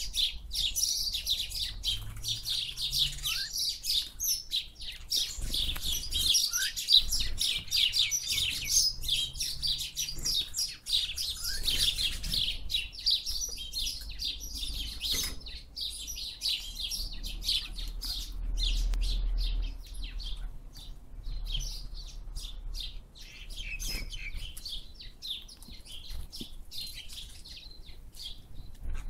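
Birds chirping, many rapid high chirps overlapping, busiest in the first half and thinning out later.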